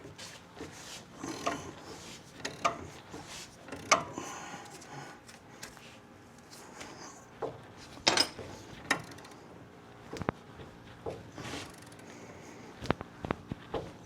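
Ball joint press being tightened by hand against a truck's control arm: irregular metal clicks, clunks and scraping as the tool is worked, with sharp knocks about four and eight seconds in and a quick run of clicks near the end.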